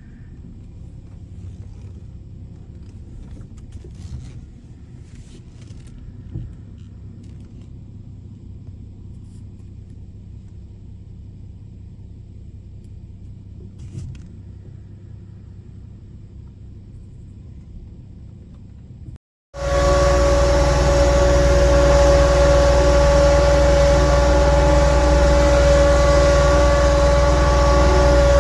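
Motor vehicle noise: a low, moderate rumble with a few faint clicks, then, after an abrupt cut about two-thirds of the way in, a much louder steady running sound with a strong steady hum.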